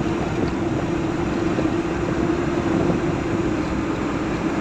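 Steady road and engine noise heard inside a moving car's cabin, with a constant drone.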